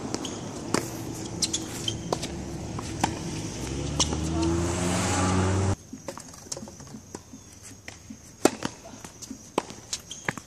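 Tennis balls struck by rackets and bouncing on a hard court, sharp knocks scattered throughout. Over the first half a motor vehicle's engine grows louder and rises in pitch as it accelerates, then cuts off suddenly a little past halfway, leaving only the ball strikes and footsteps.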